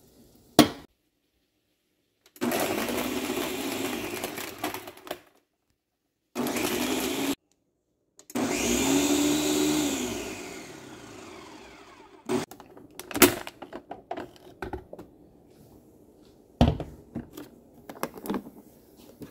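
Countertop blender crushing ice and chopped plums with water, running in three bursts, the last one winding down with a falling pitch. Then a scatter of clicks and knocks.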